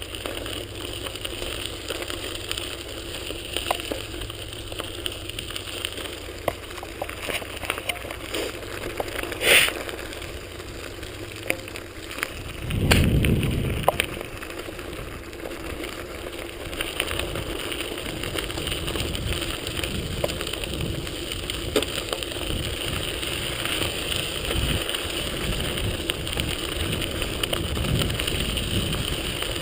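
Bicycle rolling along a path: steady tyre and wind noise with scattered clicks and rattles, and a brief low rumble about 13 seconds in.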